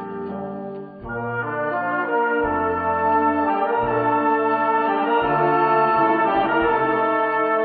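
Brass-led wind band music: held chords over a bass line that changes note about once a second, growing louder and fuller a second or so in.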